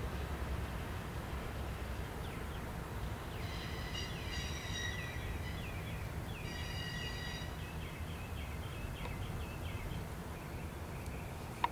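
Steady low rumble of a freight train moving off into the distance. Through the middle there are several seconds of high, shrill squealing with short falling glides, the squeal of steel wheels or brakes on the rail.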